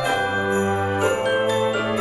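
Background music: sustained chords with bright bell-like tones, the chord changing right at the start and again near the end.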